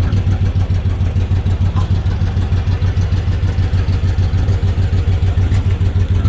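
A vehicle engine idling steadily, a loud, even low rumble with a fast regular pulse.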